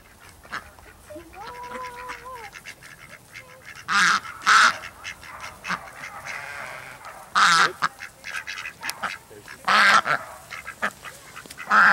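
A flock of domestic ducks quacking, with loud harsh quacks about four, seven and a half and ten seconds in and softer quacking chatter between them. A short steady whine is heard about a second in.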